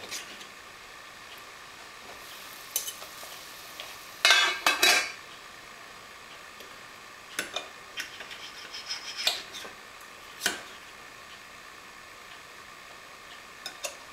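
Kitchen utensils knocking and scraping against pots and dishes in a few short, clattery bouts, the loudest about four seconds in, over a faint steady hiss.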